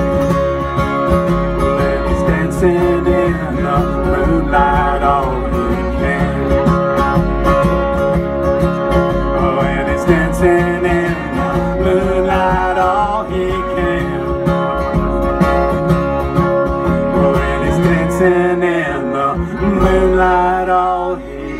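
Acoustic string band playing a country-bluegrass song: strummed acoustic guitar over a plucked upright bass.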